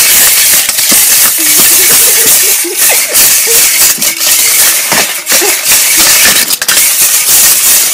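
Plush toys jostled and rubbed against the microphone: loud, continuous rustling and crackling with many quick knocks.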